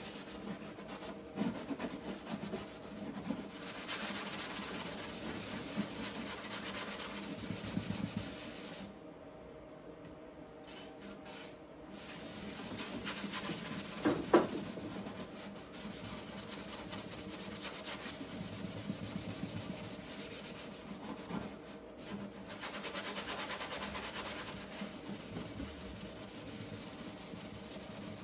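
Scotch-Brite pad wet with PB Blaster scrubbing tar residue off a car's steel firewall panel: a steady rasping rub in repeated strokes, easing off for a few seconds about a third of the way in. One brief squeak about halfway through.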